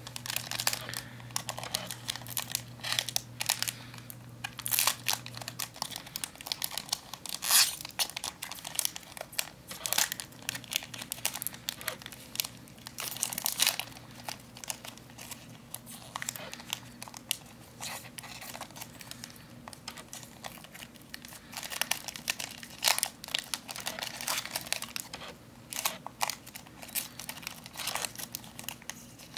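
Foil Pokémon booster-pack wrapper crinkling and tearing as it is worked and pulled open at its crimped seal, in irregular crackles throughout, sharpest about a quarter and halfway through.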